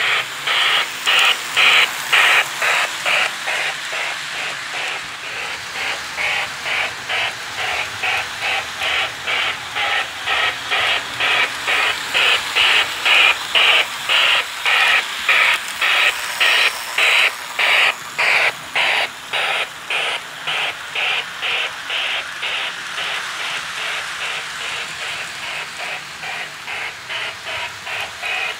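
Lionel O scale model locomotive running around the layout. Its electronic steam sound gives a steady, rhythmic hissing chuff, about three chuffs a second.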